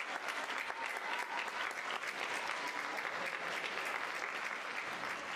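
Audience applauding steadily in a theatre after orchestral music ends.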